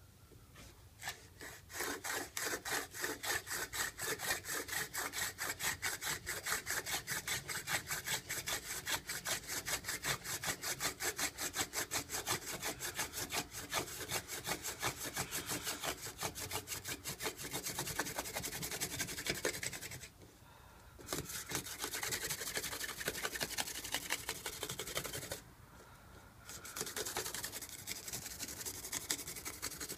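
Hand-drill friction fire: a mullein spindle spun back and forth between the palms, its tip grinding in the notch of an incense cedar hearth board in a quick, even rhythm of rubbing strokes. The grinding stops briefly twice as the hands move back up the spindle, then resumes as the spindle is worked to build an ember.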